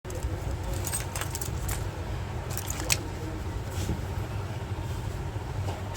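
A steady low rumble with a scatter of light clicks and taps, the sharpest about three seconds in.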